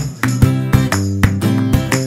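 Instrumental background music with a steady beat of sharp, pitched notes.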